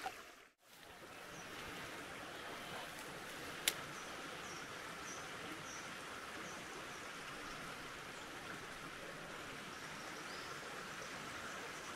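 Steady outdoor ambience of a flowing creek, a low even rush of water, with a small bird chirping faintly in a regular series and one sharp click about four seconds in.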